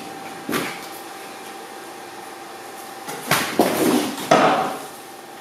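Clunks and scraping as a ride-on lawn mower is heaved over onto its side on a concrete floor, a burst of clatter lasting about a second and a half, starting about three seconds in.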